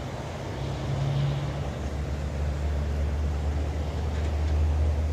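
Diesel locomotives of an approaching freight train, led by an EMD SD70AH, heard at a distance as a low steady engine drone that grows stronger about two seconds in.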